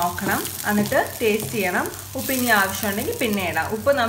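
Sliced tindora (ivy gourd) sizzling in a non-stick frying pan while a wooden spatula stirs them. A person's voice runs over the frying throughout.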